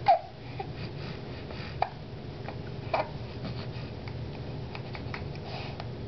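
Repeated hiccups: short, sharp catches roughly every second or so, the first the loudest and carrying a brief squeaky tone.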